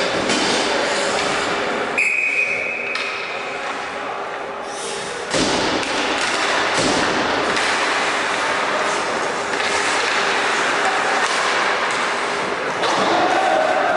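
Ice hockey played in an echoing indoor rink: a short, high referee's whistle about two seconds in, a sharp knock about five seconds in, then steady scraping of skates on the ice with voices from the players and stands.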